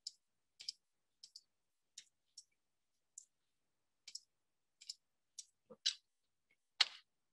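Computer keyboard keystrokes and mouse clicks while code is being edited: about a dozen light, separate clicks at an irregular pace, with the loudest click near the end.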